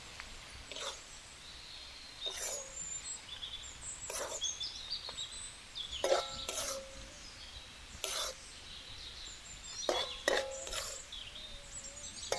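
Intermittent knocks and scrapes of a ladle in a cooking pan, about every one to two seconds, as cooked chicken pieces are scooped out. Birds chirp in the background.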